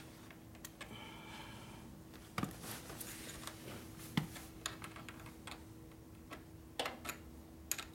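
Light metallic clicks and taps of a small wrench working a bolt at a motorcycle battery terminal, irregular, with a few sharper clinks about two and a half seconds in and near the end.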